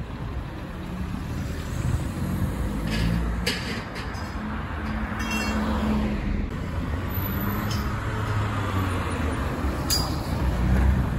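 Police cars driving slowly away along a street: steady engine and tyre noise with passing traffic, and a few brief clicks.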